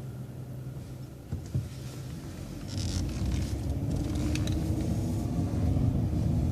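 City transit bus engine heard from inside the bus: it runs low at the stop sign, then rises in pitch and loudness about three seconds in as the bus pulls away through the turn. Two light clicks come just before it pulls away.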